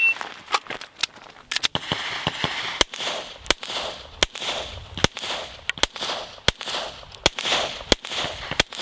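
Semi-automatic pistol fired in a steady string of single shots, roughly one every half to three-quarters of a second, each followed by a ringing echo.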